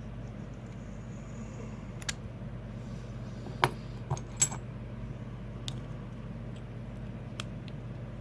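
Scattered small metal clicks and clinks from a lock's parts and lockpicking tools being handled. Three sharp ones come close together in the middle. They sit over a steady low hum.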